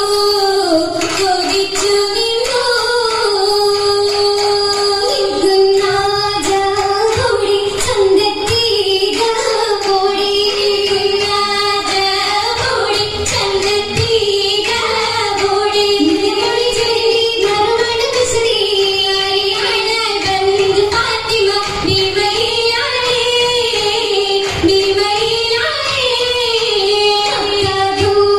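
An Oppana song, the Mappila wedding song that goes with the dance: a female voice sings a continuous melody with musical backing.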